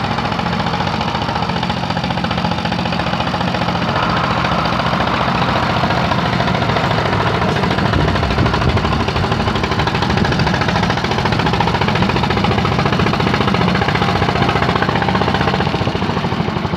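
A tractor engine running steadily, its rapid firing pulses chugging on without a break and getting a little louder about four seconds in.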